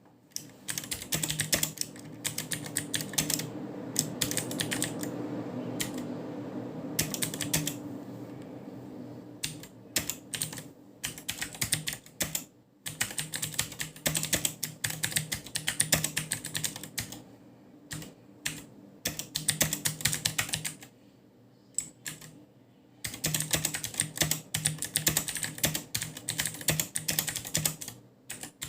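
Typing on an Akko 3108 V2 mechanical keyboard with clicky Akko blue switches: fast runs of sharp key clicks in bursts, with brief pauses between them.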